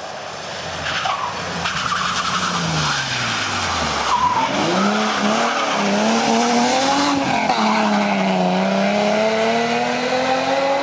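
BMW 3 Series rally car at speed. Its engine note drops steeply in the first few seconds, then picks up about four seconds in and climbs, wavering and then rising steadily as the car accelerates away, with tyre noise throughout.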